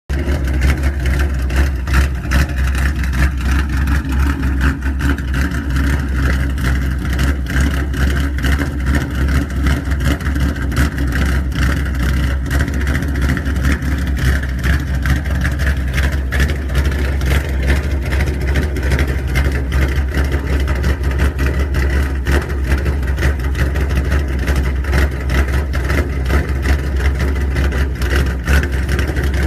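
Ford Mustang GT's 5.0-litre V8 running steadily through its exhaust in loud mode, a continuous low rumble with no clear revs.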